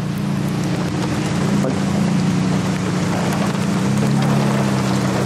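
A steady hiss of rain and wind over an engine idling with a low, even hum that shifts slightly in pitch about four seconds in.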